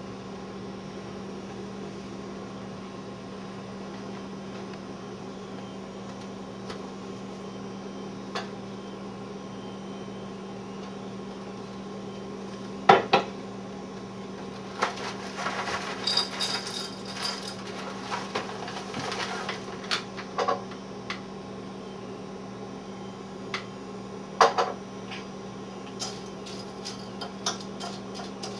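Breakfast-table clatter of ceramic dishes and a spoon over a steady low hum. After a long stretch of only the hum, there is a sharp knock, then a few seconds of clinking and rattling, and near the end a spoon tapping the bowl several times.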